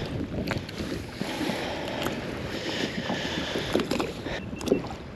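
Choppy water lapping and slapping against a plastic fishing kayak's hull, with wind on the microphone and a few light knocks.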